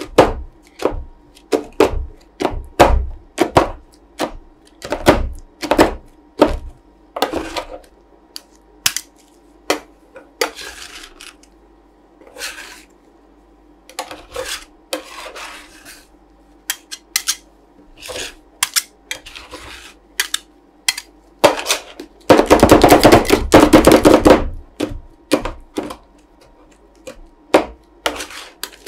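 Steel spatulas chopping and scraping ice cream mix on the frozen metal plate of a roll ice cream machine: irregular sharp taps of the blades on the plate, with a fast, loud flurry of chopping for about two seconds about three-quarters of the way through.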